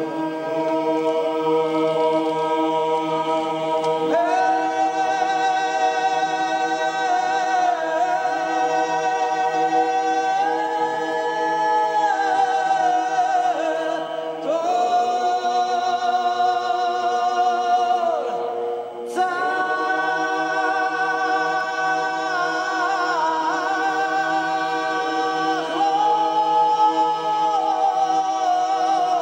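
Unaccompanied liturgical chant: a priest sings the melody in phrases while the choir holds a steady drone beneath, with short breaks between phrases. It is sung without microphones in the natural acoustics of the stone cathedral.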